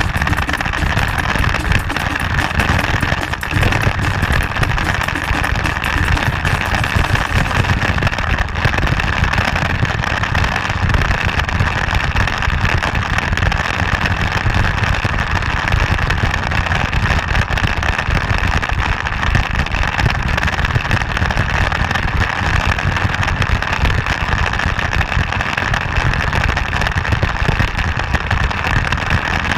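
Motorcycle being ridden at a steady pace, its engine running evenly under a constant rumble of wind on the microphone.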